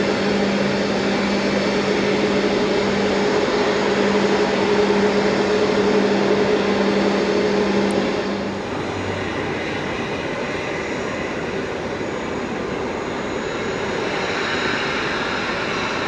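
Steady airport apron noise: a machine drone with a low steady hum that drops away about eight seconds in, leaving a quieter, even rumble and hiss.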